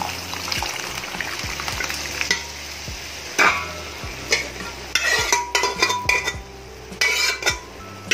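Spiced tomato masala sizzling in a pan. From about three and a half seconds in, a metal spoon scrapes and clatters against the pan in repeated strokes as it is stirred.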